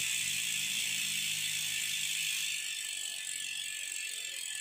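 Freehub of a carbon road wheel's rear hub ratcheting as it spins freely: the pawls clicking so fast they blur into a dense buzz, easing off a little about two and a half seconds in.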